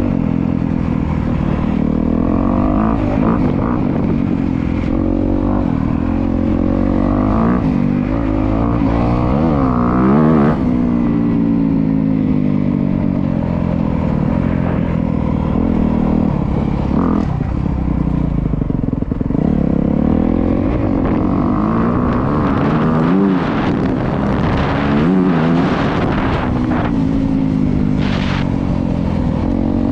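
2025 Honda CRF250R's single-cylinder four-stroke engine being ridden, the revs climbing and dropping again and again as the rider works the throttle and shifts gears.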